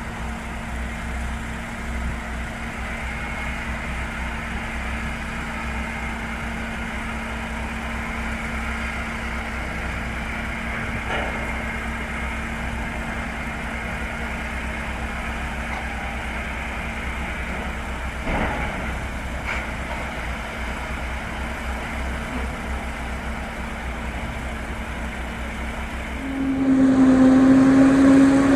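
Heavy farm machinery running steadily in a maize field, a constant engine hum with a low rumble underneath and a couple of faint knocks. About two seconds before the end, a louder machine drone with a steady pitch comes in.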